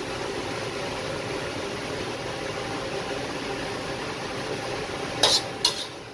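Kitchen range hood extractor fan rumbling steadily while a metal ladle spoons curry out of a wok. Two sharp metallic clinks of the ladle come near the end.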